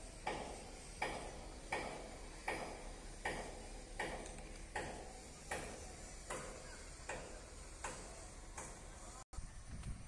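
Footsteps crunching on the gravel ballast of a railway track at a steady walking pace, about one step every three quarters of a second.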